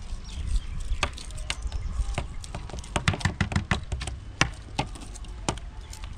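Hard-boiled eggshells cracking and crinkling as several eggs are peeled by hand, a scatter of sharp cracks that comes thickest about three seconds in.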